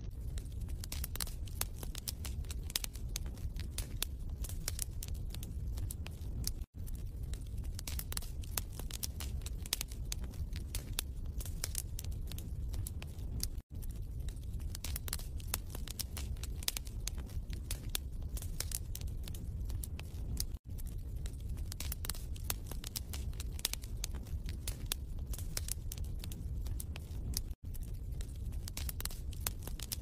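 Wood fire crackling and popping in a fireplace, a steady stream of small snaps over a low rumble. It cuts out for a split second about every seven seconds, as a looped recording does.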